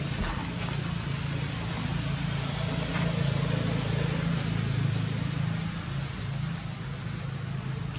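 Steady low hum of an engine running nearby, a little louder in the middle, over outdoor background noise with a few faint high chirps.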